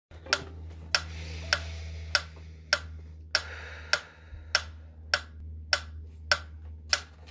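Metronome clicking at a steady beat of about 100 beats a minute, one sharp click every six-tenths of a second, over a low steady hum.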